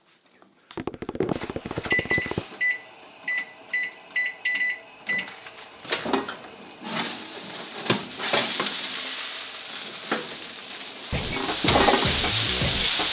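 A brief rapid rattle, then a run of about eight short electronic beeps, then a few knocks as the oven is opened and a hot sheet pan of roasted Brussels sprouts sizzles, louder near the end as the pan comes out.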